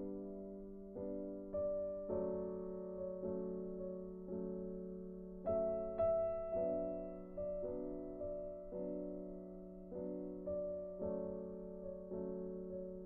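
Soft background piano music: single notes struck every half second or so, each fading away, over a held low note.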